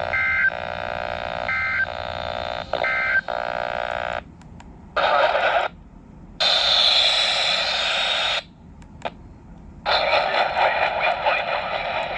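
Emergency Alert System end-of-message code: three short bursts of two-tone digital data screech, about a second apart. Then bursts of radio static hiss start and stop several times.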